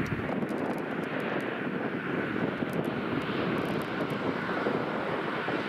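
A car approaching along the road toward the level crossing: a steady rushing of tyres and engine.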